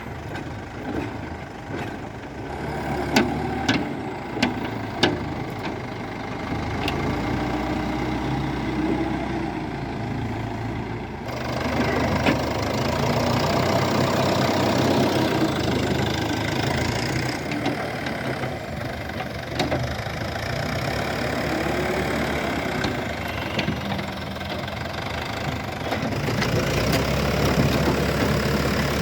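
Diesel engine of a backhoe loader running as it works loading sand, with a few sharp knocks about three to five seconds in.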